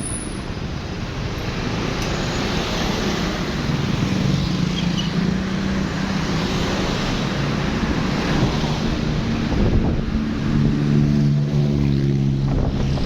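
Road traffic in a jam: vehicle engines running with a steady low hum over a continuous wash of road noise. The hum comes up about four seconds in and again near the end.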